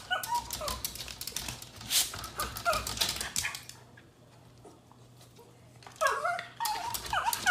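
A dog whimpering in short, bending high calls, with a clatter of clicks and knocks in the first few seconds; the calls come again, louder, near the end.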